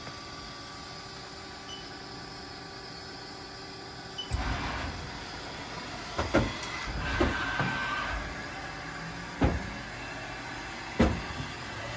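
Haas SL-30T CNC lathe in operation: a steady hum, then about four seconds in the machine starts moving with motor noise, broken by four sharp clunks.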